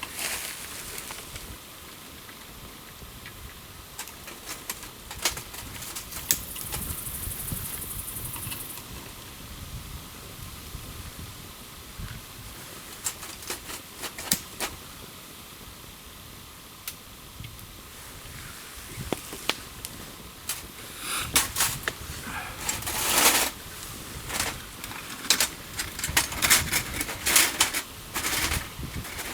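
Wood campfire crackling, with scattered sharp pops and snaps that come thicker and louder over the last several seconds.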